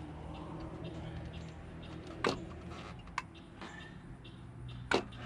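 A few sharp metallic clinks and taps from hand tools and engine parts as the front cylinder head of a Nissan VG30E V6 is worked loose. A low steady hum runs underneath.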